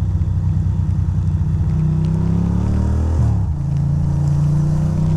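2006 Ducati Monster 620's air-cooled L-twin engine under acceleration. Its pitch rises, drops sharply at an upshift about three seconds in, then climbs again.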